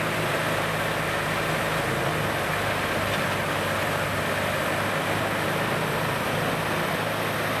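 CBI Magnumforce 5400 mobile wood grinder running, a steady, unbroken heavy engine drone.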